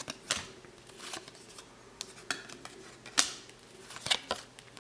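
A stack of NBA Hoops basketball cards being flipped through by hand, each card slid off the front of the stack with a short, sharp card-on-card scrape. About eight come at irregular intervals.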